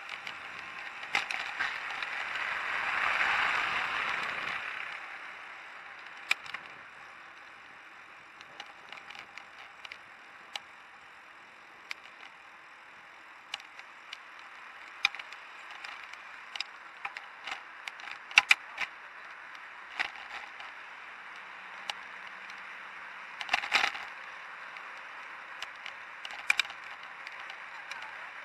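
Bicycle ride recorded from a handlebar-mounted camera: steady wind and tyre noise, with scattered sharp clicks and rattles from the bike and camera mount. The rattles come loudest in clusters near the middle and about three-quarters of the way through. A swelling rush of noise passes in the first few seconds.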